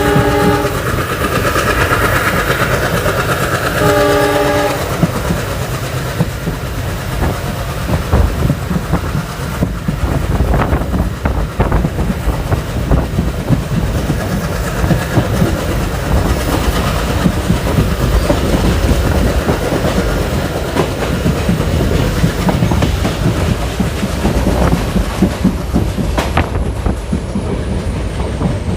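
Passenger train running, heard from on board: a steady rumble with wheels clacking over the rail joints. The locomotive's horn sounds at the start, cutting off within the first second, and again briefly about four seconds in.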